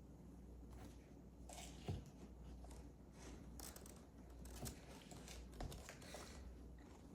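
Faint clicks and rustles of a measuring spoon and baking powder being handled at a mixing bowl, with one sharper click about two seconds in, over a low room hum.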